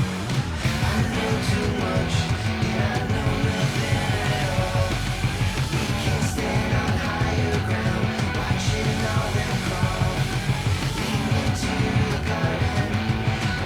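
Loud rock music with distorted guitars, a driving drum beat and singing.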